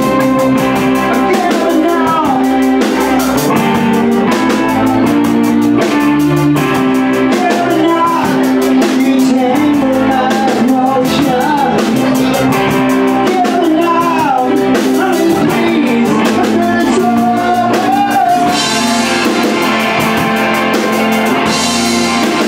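Live rock band playing: electric bass and drum kit under a sung melody, with two cymbal crashes near the end.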